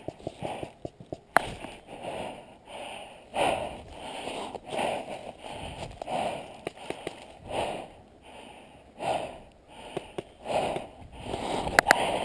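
A person breathing close to the microphone, one breath about every second and a half, with a few sharp clicks: one just over a second in and two near the end.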